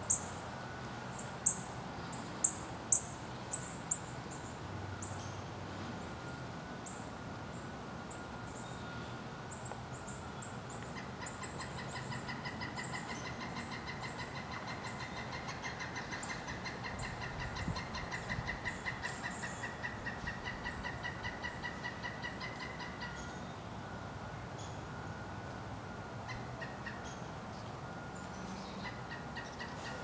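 Pileated woodpecker calling in a long, rapid, evenly paced series of loud notes, about three a second, starting about a third of the way in and lasting some twelve seconds. Before that, a few sharp taps come in the first four seconds while it forages on the trunk.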